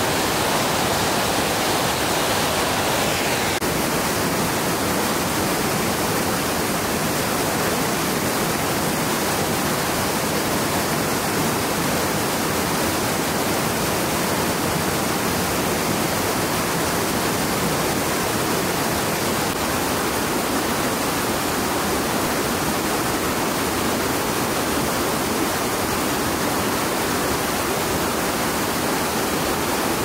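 Waterfall rushing: a loud, steady roar of falling water. Its tone dulls slightly about three and a half seconds in.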